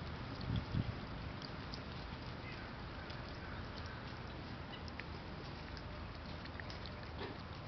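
A cat lapping broth from a glass bowl, heard as scattered small ticks of the tongue over a steady background hiss, with two low thumps about half a second in.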